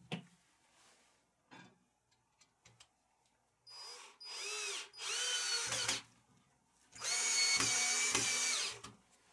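Cordless 14.4 V drill-driver turning screws in a steel wall-mount TV bracket. Three short runs of the motor come about four seconds in, its pitch dipping and rising as it slows and speeds up, then one longer steady run of nearly two seconds near the end. A sharp knock at the very start.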